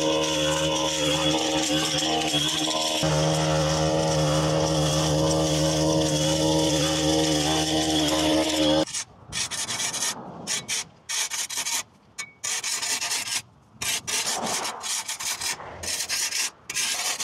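A small engine on yard equipment runs steadily at an even speed for about nine seconds, then cuts off suddenly. After that come short scraping, rubbing sounds with brief gaps between them.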